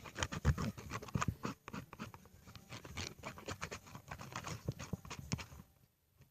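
Sticky homemade glue slime being kneaded and pulled by hand, a quick run of wet clicks and squelches that stops about a second before the end. The slime is still sticky.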